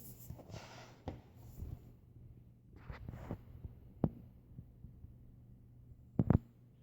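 Handling of a board jigsaw book and its cardboard puzzle pieces: soft rustles and scattered light taps, with a sharp double tap about six seconds in, over a steady low hum.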